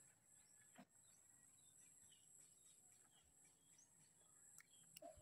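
Near silence: faint outdoor ambience with scattered faint bird chirps and a steady faint high hum.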